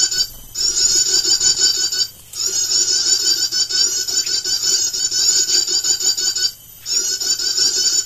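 Rapid, high chittering bird call played on a loop from a small speaker as a lure for bird trapping. It cuts off abruptly three times for a split second before starting again.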